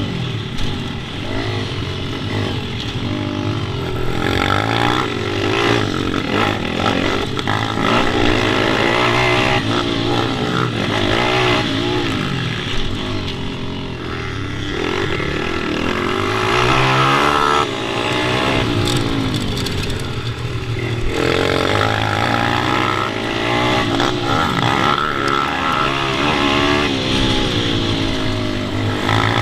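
Pit bike engines revving, the pitch rising and falling over and over with throttle and gear changes.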